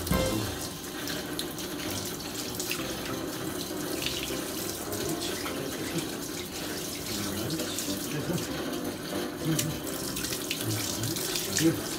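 Garden hose running steadily, its water splashing onto a wet Shiba Inu's coat and the concrete floor as the dog is rinsed.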